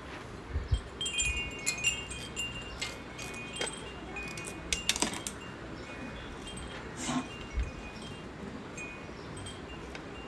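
Wind chime tinkling in irregular clusters of short high notes, busiest in the first five seconds, with a few scattered clicks and soft knocks.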